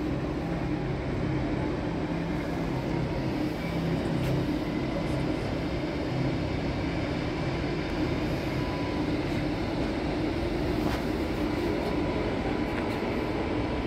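Steady low drone and hum of trains standing at a railway station platform, with a faint steady high tone coming in about two-thirds of the way through.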